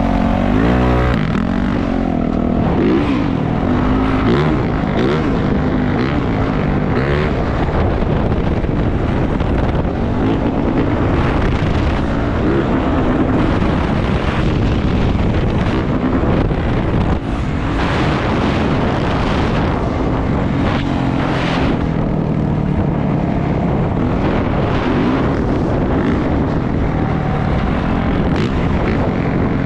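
Dirt bike engine running while being ridden, its pitch rising and falling with the throttle.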